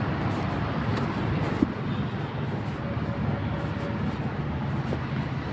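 Steady vehicle and road noise with a low rumble, as heard while travelling in traffic, with a short sharp knock about a second and a half in.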